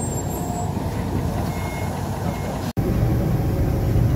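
Old diesel railbus engine running steadily. About two-thirds of the way through the sound breaks off abruptly for an instant, then the engine comes back louder and deeper as the railbus runs along the track.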